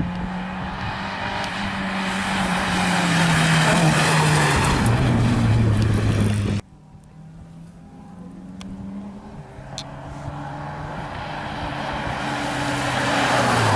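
Rally cars at racing speed. A small hatchback rally car's engine approaches and passes with its note falling, then cuts off suddenly about six and a half seconds in. A Peugeot 206 rally car's engine is then heard approaching, growing steadily louder.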